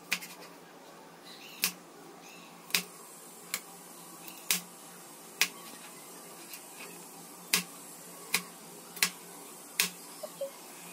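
Kitchen knife chopping okra on a plastic cutting board: about ten sharp knocks of the blade striking the board, roughly one a second at an uneven pace.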